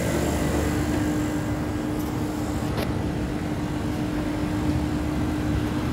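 Carrier chiller running, its compressors giving a steady mechanical hum with a constant tone held over it.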